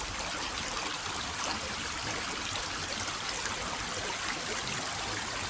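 Water of a stream running steadily over rocks, an even rushing splash.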